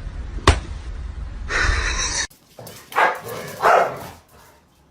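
A dog barks twice, about a second apart, a little after the middle, following a brief noisy scuffle.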